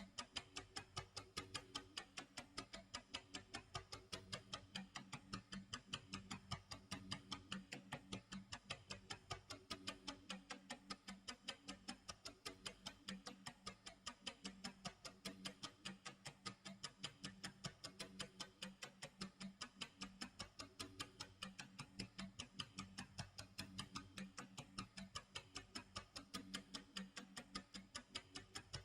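Clock tick-tock sound effect: quick, evenly spaced ticks over a steady low tone, timing a countdown.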